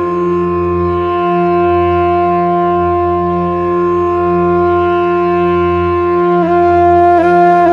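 Instrumental background music: a long held wind-instrument note over a low, slowly pulsing drone, the note dipping briefly twice near the end.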